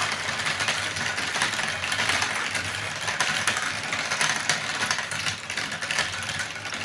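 Many glass marbles rolling and clattering together down a plastic marble run track, a dense, steady rattle of small clicks.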